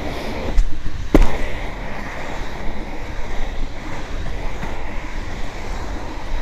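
Three-wheel inline hockey skates rolling fast over pavement, with wind rushing across the microphone. Two sharp knocks about half a second and just over a second in, the second louder.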